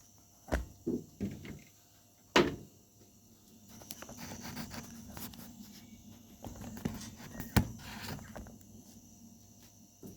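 Several sharp knocks and thumps in the first couple of seconds, then a few seconds of soft shuffling and rustling with an odd click: handling and movement noise.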